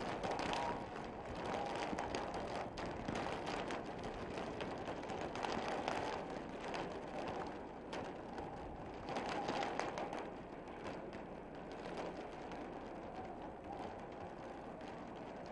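Steady outdoor noise that gently swells and fades every couple of seconds, with a few faint ticks.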